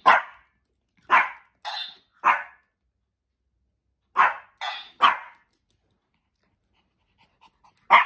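Pomeranian barking in short, sharp barks: a run of three, then three more about two seconds later, and another near the end.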